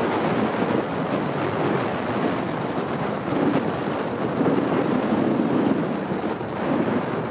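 Steady rushing of wind over the microphone during a ski run, mixed with skis sliding over groomed snow.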